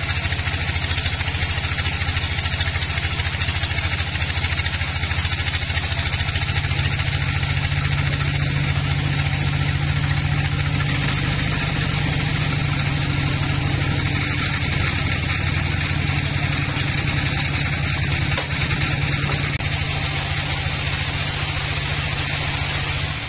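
Band sawmill running with a steady low drone from its drive motor, and the blade sawing through logs.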